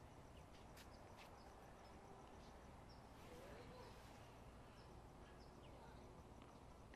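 Near silence: faint outdoor background noise, with two faint short ticks about a second in.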